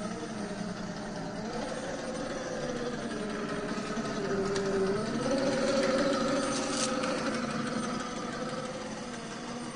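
Axial SCX10 III RC crawler's 2300kv brushless motor and geared drivetrain whining as it crawls, the pitch rising and falling with the throttle, loudest as the truck passes close about halfway through.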